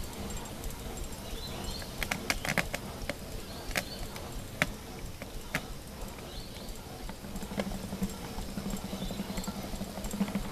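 1910 Marshall portable steam engine running with a rhythmic clatter from its moving parts and scattered sharp clicks. A low hum swells about seven seconds in.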